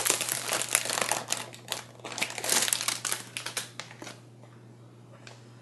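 Paper and cardstock perfume packaging rustling and crinkling as it is handled, busy for about four seconds before it dies away.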